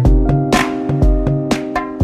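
Background music with a steady drum beat: a kick drum about once a second, sharper hits between, over a bass line and held notes.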